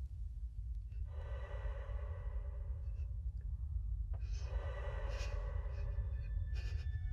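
Horror-film sound design: a low rumble that slowly grows louder, with two long breath-like swells, each about three seconds, one after the other.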